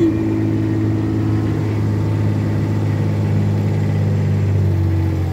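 Side-by-side utility vehicle's engine running steadily while driving along, a constant low hum.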